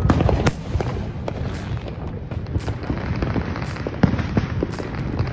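Fireworks going off: a dense run of crackles and bangs over a low rumble, with sharper reports right at the start, about half a second in and about four seconds in.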